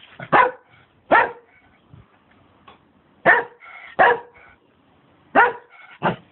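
Dog barking: six sharp barks in three pairs, the two barks of each pair about three-quarters of a second apart.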